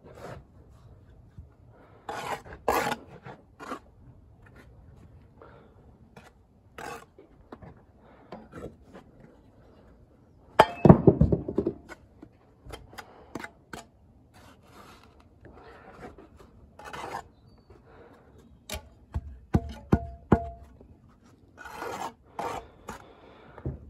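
Steel brick trowel scraping and rasping against mortar and brickwork in short, irregular strokes with pauses between them. The loudest stretch, about eleven seconds in, is the trowel working wet mortar on the mortar board.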